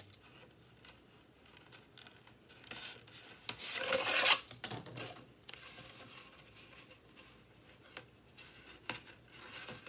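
Blue masking tape being cut, stuck and rubbed down over the open end of a cardboard tube: quiet scattered clicks and rustles, with a louder rasping rub about four seconds in.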